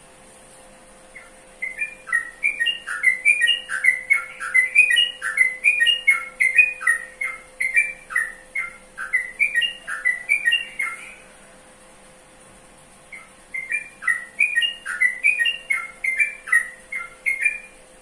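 Yellow-vented bulbul (trucukan) calling in two long runs of quick chattering notes that jump up and down in pitch, with a pause of about two seconds between the runs.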